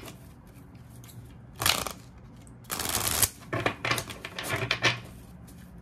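A deck of oracle cards being shuffled by hand: short rustling, slapping bursts, one about a second and a half in and a run of them from about three to five seconds.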